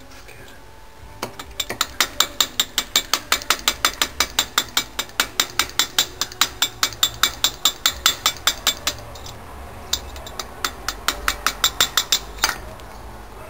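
Rapid, even metallic clicking, about five clicks a second, in a long run and then a shorter one after a brief pause about nine seconds in, made while the wrist pin is being worked out of the piston of a 66cc two-stroke bicycle engine.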